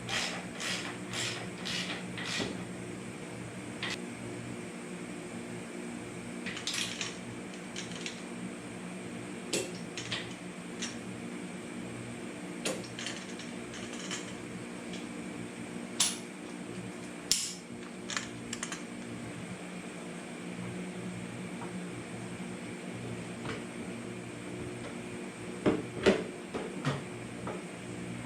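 Scattered metallic clinks, taps and knocks of hand tools and metal parts being worked on, over a steady mechanical hum. There is a quick run of clinks at the start, a few single sharper knocks midway, and the loudest cluster near the end.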